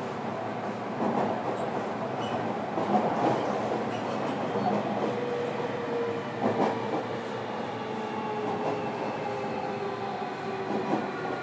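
Toshiba permanent-magnet synchronous traction motors of a JR Kyushu 305 series electric train, heard from inside the motor car: steady wheel and rail noise with a few rail-joint clicks. From about halfway through, a thin motor whine slides slowly down in pitch as the train slows.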